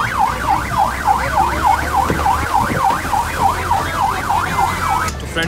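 Electronic yelp-type siren on a zoo tourist train, a fast wail sweeping up and down about three times a second, cutting off suddenly near the end, over a low steady rumble.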